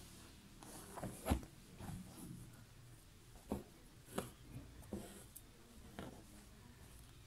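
Embroidery needle piercing taut fabric in a hoop and thread being drawn through, heard as faint scratchy ticks and swishes, about five of them, the loudest a little over a second in.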